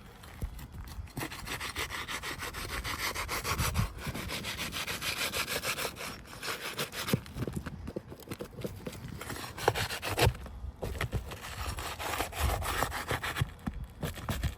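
A tool scraping and rasping under asphalt roof shingles in quick strokes, breaking the shingles' seal to free the nails, with a few sharp knocks about ten seconds in.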